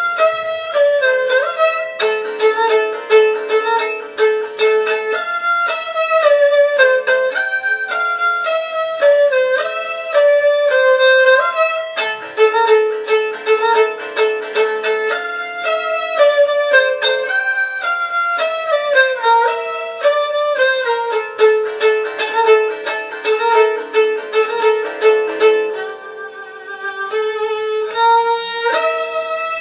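Instrumental music: a quick, ornamented string melody with sharp note attacks, thinning out briefly near the end before picking up again.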